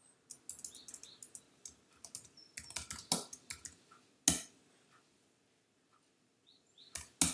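Computer keyboard typing in quick runs of keystrokes with a few louder strokes, then a pause of about two seconds before a few more keys near the end.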